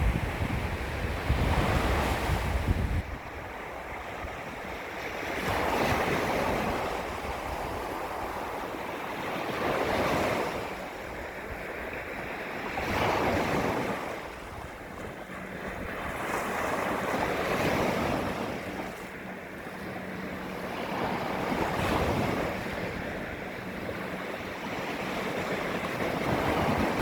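Small waves lapping against a beach shoreline, each one washing in and fading away every three to four seconds. Wind buffets the microphone in the first few seconds.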